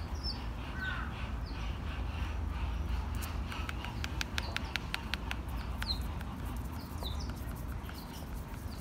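A few short, high bird chirps over a steady low background rumble, with runs of sharp clicks in the middle and near the end.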